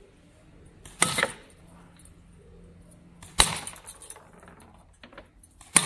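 Two sharp metallic hits about two and a half seconds apart: 8 mm steel balls from a slingshot striking and punching through an enamel bowl. A few quick knocks come near the end.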